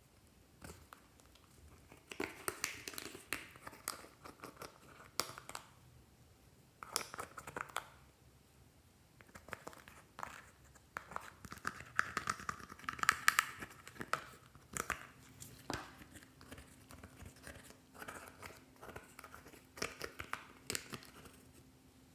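Glossy slime being worked by hand: sticky crackling and popping clicks in bursts of a few seconds, with short quiet gaps between.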